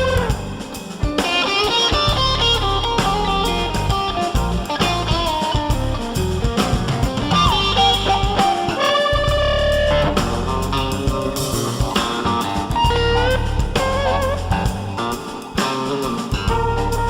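Background music: a melody on electric guitar with bent, wavering notes over a steady drum and bass beat.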